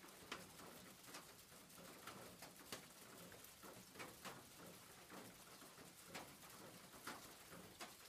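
Faint rain on a roof: a soft hiss with individual drops tapping at irregular intervals, a few of them sharper and louder.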